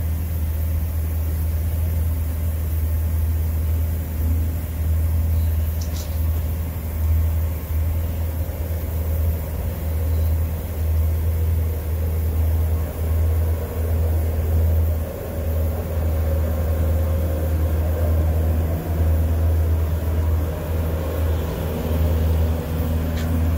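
Steady low hum and rumble of welding equipment running while a TIG torch welds around a pipe joint, with a faint click about six seconds in.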